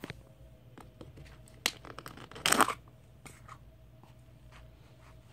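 Thick card pages of a hardcover board book being handled and turned: a few light clicks and taps, and one louder papery swish about two and a half seconds in.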